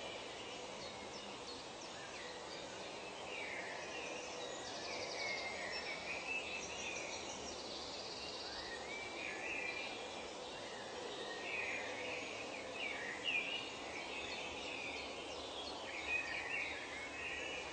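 Forest soundscape: many birds calling and chirping in overlapping short phrases over a steady hiss, with high, rapid pulsed trills twice in the middle.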